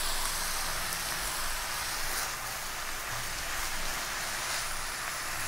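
Sliced mushrooms and bell peppers sizzling steadily in a hot frying pan as they are stirred with a silicone spatula, the mushrooms freshly added and starting to cook.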